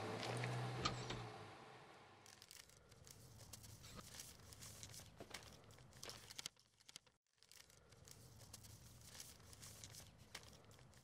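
Paper crackling and tearing as an envelope or card is handled and opened, faint, with a louder rush of noise in the first two seconds and a brief hush about seven seconds in.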